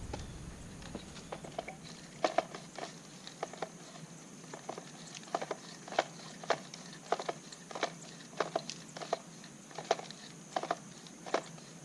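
Short, sharp plastic clicks from an Echo Speed Feed trimmer head being handled and turned, about one or two a second at uneven intervals, over a faint steady hum.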